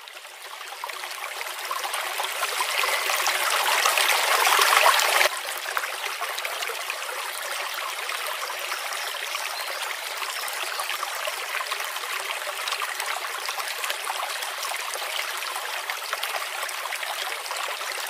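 Small tabletop fountain trickling: a thin stream of water pouring from the upper cement flower cup into the pool of the lower cup. The splashing fades in, is loudest until about five seconds in, then drops to a quieter, steady trickle.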